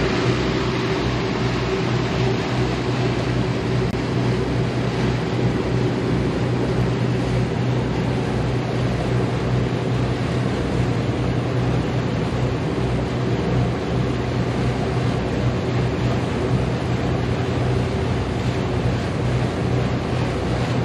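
Motor yacht's engines running steadily underway, a steady low hum, with the rush of water along the hull and its wake.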